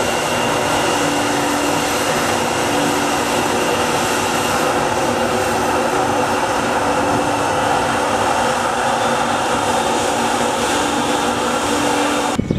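Twin Rolls-Royce Trent XWB turbofans of an Airbus A350-900 on final approach to landing: a loud, steady jet noise with a faint constant hum in it. It cuts off suddenly near the end.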